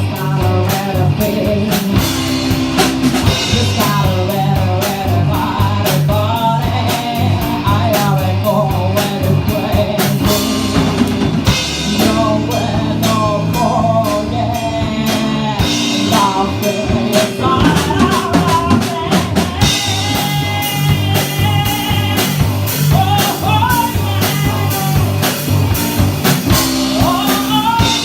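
A band playing a bluesy rock song, with drum kit, electric guitar and a singing voice over a steady beat.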